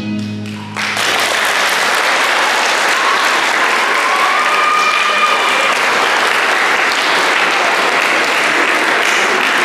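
Music ends about a second in, and an audience breaks into steady applause.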